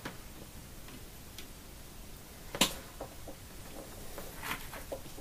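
Light clicks and taps of soldering work, with one sharp click about halfway through, then a few brief scratchy rustles near the end as the soldering iron's tip is wiped clean.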